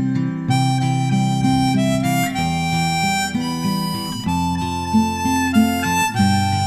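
Background music: a sustained, reedy melody over changing chords with a steady bass.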